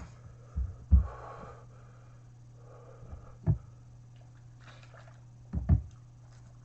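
A person finishing a hot chicken sandwich: breathy exhales and sniffs, with four short, dull low thumps spread through the moment.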